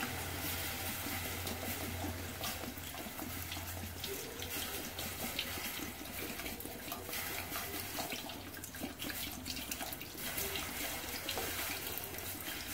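Water poured in a steady stream from a plastic jug into a pressure cooker pot, splashing onto pieces of liver and onion.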